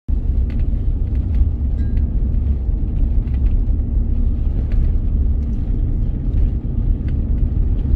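Vehicle driving on a gravel road: a steady low rumble of tyres on gravel, with scattered sharp clicks of loose stones.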